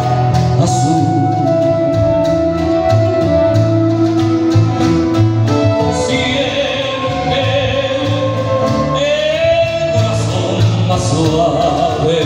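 Live ensemble music: violins and a transverse flute play the melody over strummed acoustic guitar and bass, with a steady rhythmic pulse.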